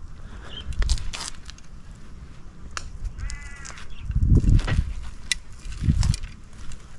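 Handling noise from a chest-mounted action camera being adjusted: scattered sharp clicks, rubbing and low bumps against the microphone. A single short bird call sounds about three seconds in.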